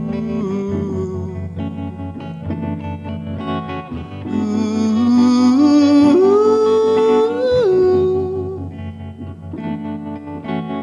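A man singing slow held notes into a microphone, accompanied by an electric guitar. A long, slightly rising held note in the middle is the loudest part.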